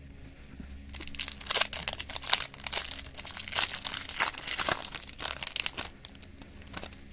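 Foil wrapper of a Donruss Series II baseball card pack crinkling and tearing as it is ripped open by hand and the cards are pulled out. It starts about a second in and dies down about six seconds in.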